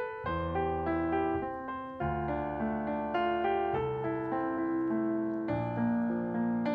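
Piano playing slow chords over low bass notes, the harmony changing about every second.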